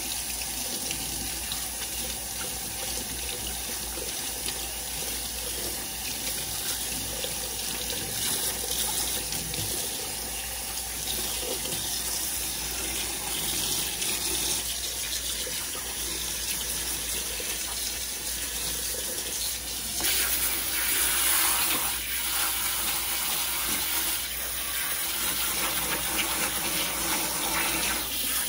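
Kitchen faucet running into a stainless steel sink while a long-haired cat is rinsed under the stream. About twenty seconds in, the pull-down spray head comes into use and the hiss of water gets brighter and louder.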